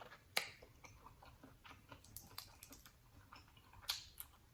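Quiet close-miked chewing and mouth noises from eating a seafood boil, with scattered crisp clicks. The sharpest click comes about half a second in and another near the end.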